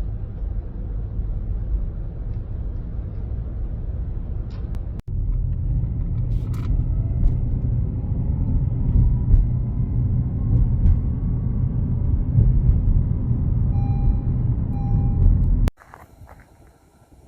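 A car on the move: a steady low rumble of engine and road noise. It breaks briefly about five seconds in and stops abruptly near the end, leaving only faint sound.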